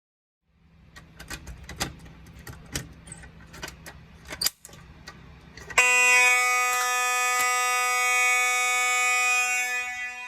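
Scattered clicks and knocks, then about six seconds in a fire alarm system's signals come on suddenly and loud, a steady continuous ring made of many held tones, from the bells and horns of an old Silent Knight 5208 system under test.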